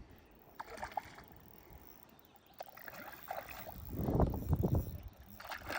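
Water splashing and sloshing, with a few light knocks; the loudest stretch comes about four seconds in.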